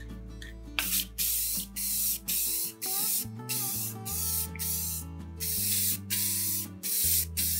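Aerosol can of Krylon clear gloss finish spraying in about a dozen short hissing bursts, one after another, starting about a second in, as coats are laid on the wood. Background music plays underneath.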